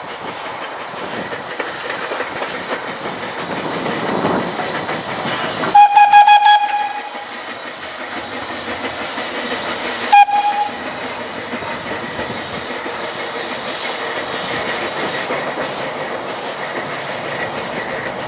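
Small steam tank engine running with steady chuffing and rail noise. A loud steam whistle blows for about a second some six seconds in, and a second short toot follows about four seconds later.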